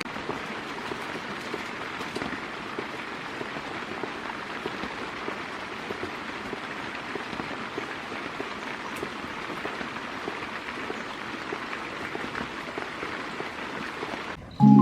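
Steady rain falling on a surface, an even hiss of many small drop ticks; it cuts off abruptly near the end as music begins.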